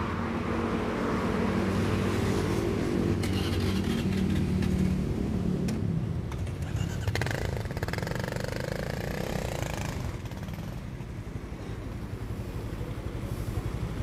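Motorcycle engine idling with a steady low hum for the first half, then a passing vehicle's sound rising and falling in pitch about halfway through, over street traffic noise.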